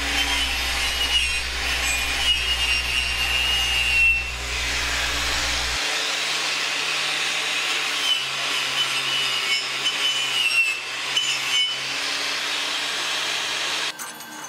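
Angle grinder with a wire wheel scrubbing slag off a fresh flux-core weld on thin steel tube: a steady scratchy hiss over the motor's wavering whine. It stops shortly before the end.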